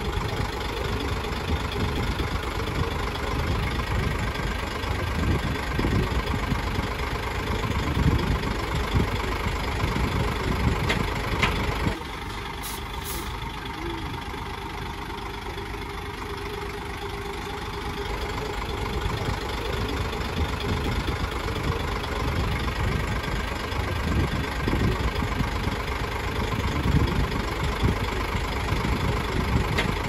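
A bulldozer's heavy diesel engine running continuously at work, its level swelling and easing. About twelve seconds in it drops to a lower, steadier level for around six seconds, then builds up again.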